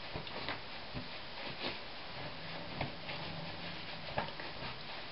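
Terry towel rubbing and patting a face dry: soft rustling with a few light knocks, over a steady hiss.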